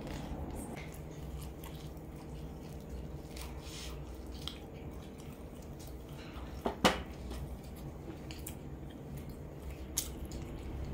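Close-miked chewing and soft wet mouth sounds of eating crisp-skinned fried chicken, with small scattered clicks and two sharper clicks about seven seconds in, over a low steady hum.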